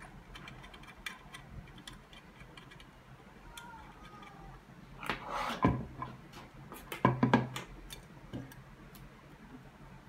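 Cables and plastic connectors of a vehicle camera system's wiring harness being handled and plugged together on a table: scattered light clicks and rustling, with louder clatters about five and seven seconds in.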